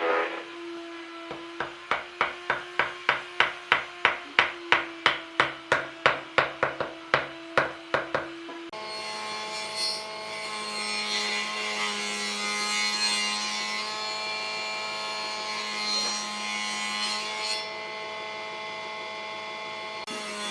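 Wood being worked with tools: for about eight seconds there are rhythmic strokes, about three a second, like sawing or rasping wood over a steady hum. Then the sound changes abruptly to a steady running tool with a hum and a hiss.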